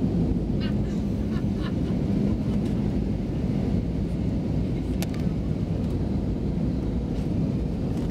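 Steady low rumble of an Airbus A320 passenger cabin in flight, engine and airflow noise heard from inside, with a few faint clicks and one sharper click about five seconds in.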